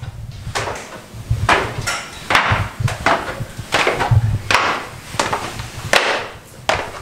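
Footsteps coming down a wooden staircase: slow, steady knocks on the wooden treads, about one to two steps a second.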